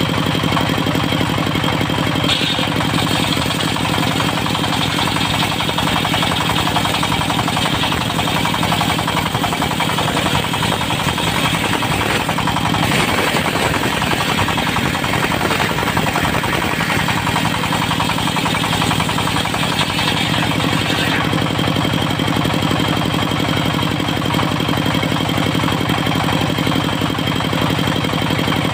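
Diesel engine of a portable circular-saw sawmill running steadily. A higher hiss joins it from a couple of seconds in until about three-quarters of the way through, then the engine runs on alone.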